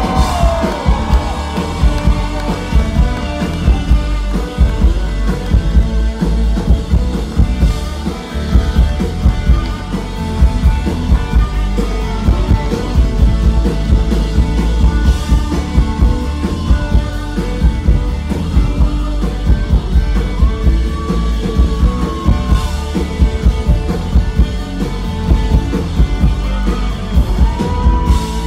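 Live band playing an instrumental passage: a drum kit keeping a steady beat under electric bass, with a fiddle sliding between notes.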